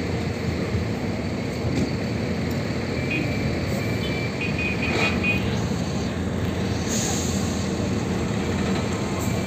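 Engine of a Mercedes-Benz coach bus running as it pulls slowly away, mixed with passing motorcycle engines in steady traffic rumble. A short run of faint beeping tones comes between about three and five seconds in, and a brief hiss of air about seven seconds in.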